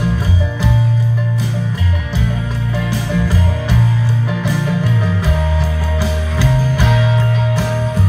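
Live band music played through a stage PA and recorded from the audience, led by guitar over deep bass notes with a regular beat.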